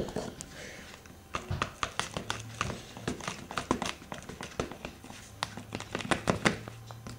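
Metal spoon stirring a thick syrup mixture in a clear plastic tub: quick, irregular taps and clicks of the spoon against the tub, several a second.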